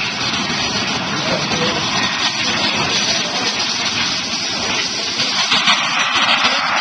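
Engines of a large radio-controlled four-engine jet transport model at full power on its takeoff run: a steady rushing jet noise that grows a little louder near the end.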